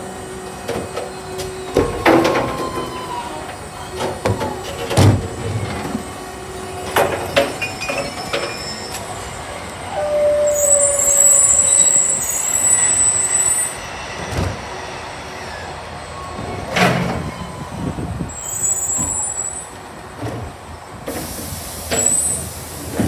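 Electric side-loading garbage truck at work: a steady whine from its drive and the automated arm's hydraulics, with loud clunks and knocks as wheelie bins are lifted, emptied into the hopper and set down. A hiss of air brakes comes about ten seconds in, and shorter hisses near the end.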